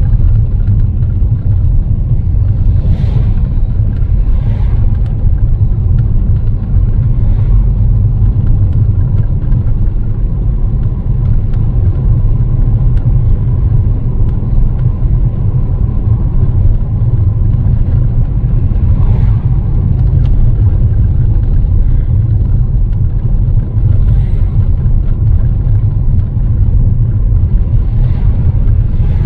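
Steady, loud low rumble of vehicle road noise, with a few brief swells.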